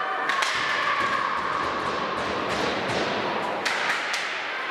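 Ice skate blades scraping across the rink ice, with a few sharp knocks of hockey sticks or pucks: one near the start and two close together near the end.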